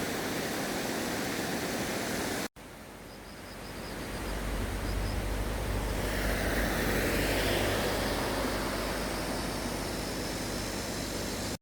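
Rushing water of a mountain valley stream. It cuts out abruptly, then comes back and builds into a louder rush with a low rumble that swells midway and eases a little.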